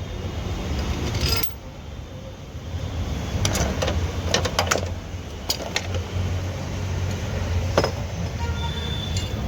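Irregular metallic clinks and taps of hand tools and head bolts being fitted into a diesel engine's cylinder head, over a steady low hum.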